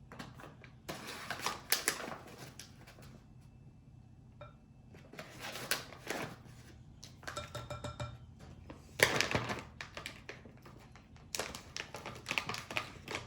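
A utensil clattering and scraping in a mixing bowl in several bursts as flour is stirred into shredded zucchini fritter batter, with a brief ringing tone a little past halfway.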